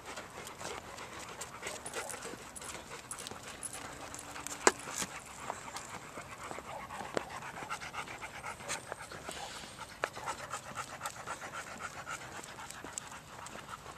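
A dog panting fast in a steady rhythm, clearest in the second half, among scattered sharp clicks and crunches, with one louder click about five seconds in.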